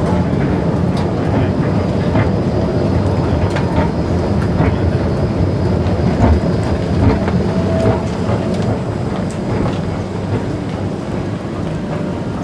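Steady low rumble of an underground MRT station, with escalator running and scattered footsteps and clicks; it eases a little after stepping off onto the concourse.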